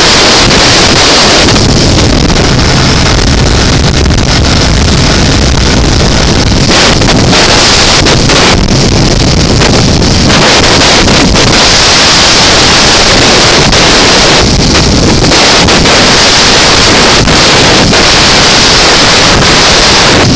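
Heavy wind noise buffeting the microphone of a 2005 BMW F650CS motorcycle at highway speed, with the bike's engine and road noise running underneath. The rush shifts in texture every few seconds as the airflow changes.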